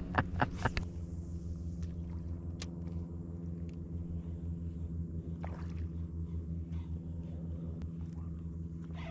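Kayak's electric trolling motor running with a steady low hum. A few short knocks of gear being handled come in the first second.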